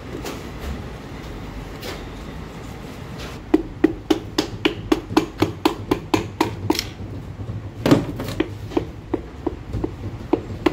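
Metal tool tapping a piston down through its rings into the cylinder liner of a Hyundai Verna engine block: a quick run of light taps, about five a second, then one louder knock and slower taps about two a second near the end.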